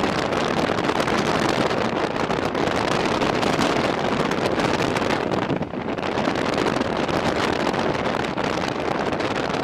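LAV-25 armored vehicle running steadily, heavily mixed with wind buffeting on the microphone, with a brief dip in loudness about five and a half seconds in.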